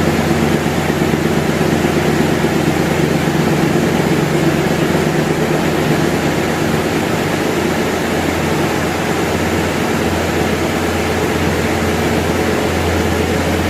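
Britânia/Philco 155 W electric fan running, a steady rush of air from the spinning blades over a constant motor hum.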